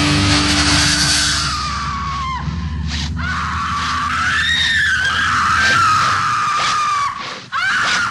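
A long, high, wavering scream that rises and falls in pitch, with the low end of a heavy metal track fading out beneath it. The scream breaks off briefly twice near the end.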